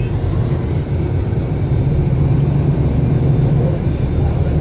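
Traffic of motor scooters, cars and a truck crawling close by: a steady, loud, low engine rumble.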